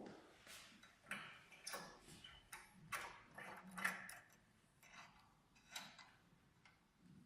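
Faint, irregular clicks and light knocks of equipment parts being handled, about a dozen of them, with the sharpest about four seconds in.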